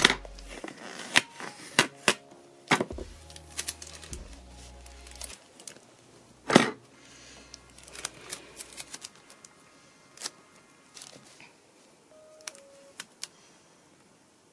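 Scissors snipping washi tape and the tape being handled on a paper scrapbook page: a string of sharp clicks and snips, the loudest about six and a half seconds in, over light background music.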